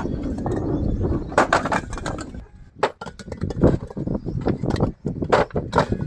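Fired clay bricks being handled and stacked, knocking and clinking against one another in irregular sharp clacks. A low rumble fills the first two seconds, then drops away.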